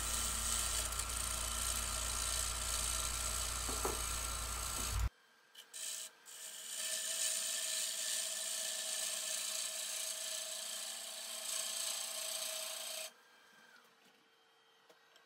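A gouge shearing wood from the inside of a spinning maple bowl on a lathe: a steady hiss as shavings fly off. The cutting breaks off abruptly about five seconds in, starts again a second later, and stops about two seconds before the end, leaving only a faint steady tone of the lathe running.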